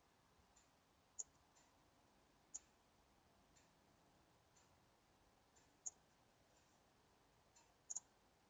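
Computer mouse clicking, faint: four sharp clicks a second or more apart, the last a quick double click near the end, with fainter ticks in between.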